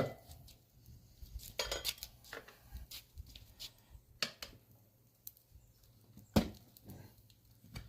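Metal hand tools clinking and knocking a few times at work on a dirt bike's rear wheel, the loudest knock about six seconds in.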